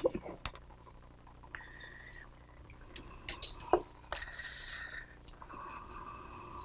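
Wooden spoon stirring a wet chili-pepper kimchi seasoning paste in a glass bowl: soft squelching and small clicks, with one sharper knock of the spoon about three-quarters of the way in. A faint high steady tone comes and goes a few times.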